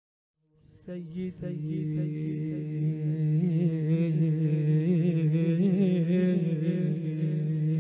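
A man's voice chanting an Arabic supplication in a melodic recitation style, starting about half a second in and drawing out a single word, 'Sayyidi' (O my Master), as one long wavering note.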